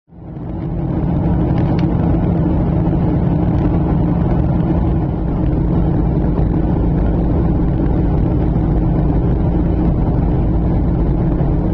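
Aircraft cabin noise in flight: a steady drone of engines and rushing air, with two constant low hums.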